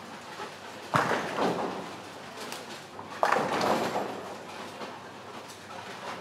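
Bowling pins crashing as balls hit them, twice, about two seconds apart, each a sudden crack followed by about a second of rattling clatter, over the steady hum of a bowling hall.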